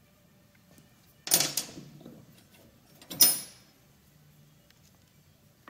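Two short metallic clatters about two seconds apart, the second ending in a brief high ring: an Allen key and gear parts being handled against the metal housing of a Monarch 10EE lathe apron.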